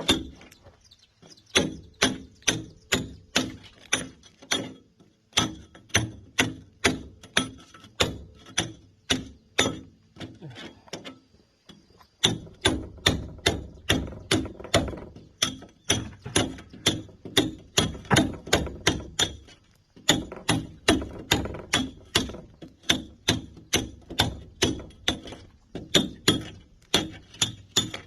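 Hand sledgehammer striking a steel chisel into concrete. The ringing metal-on-metal blows come about two or three a second, in runs broken by short pauses, with a stretch of lighter, softer taps about ten to twelve seconds in.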